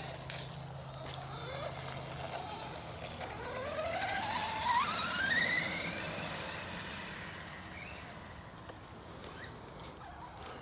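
Arrma Big Rock BLX RC truck's brushless motor and drivetrain whining, its pitch climbing steadily as the truck accelerates, then fading away over the last few seconds.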